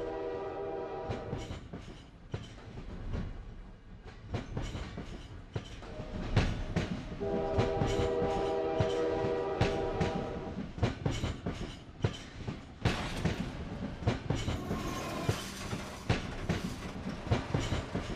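Train running on rails, its wheels clattering over the joints in an uneven rhythm, with a held chord-like horn at the start and again for about three seconds midway.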